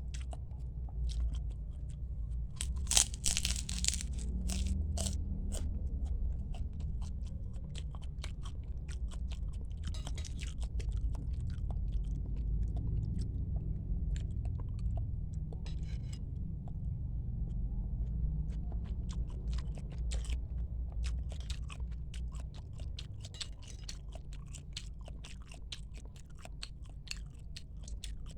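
Close-miked chewing and biting of bakso meatball soup: a steady run of small crunches and wet mouth clicks, with a louder crunch about three seconds in.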